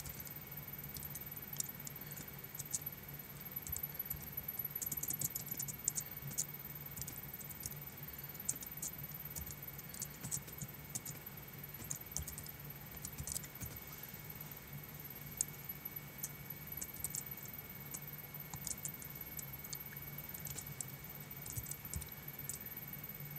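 Computer keyboard keystrokes, irregular light clicks coming in short runs and pauses, over a steady low hum.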